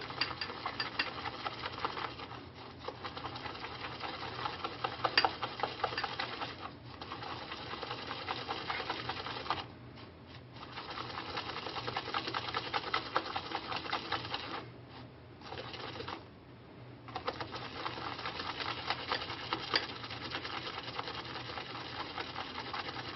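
Shaving brush whipping a lather from shaving soap, glycerin and water: quick, even strokes of wet bristles crackling and swishing in the foam, stopping briefly a few times.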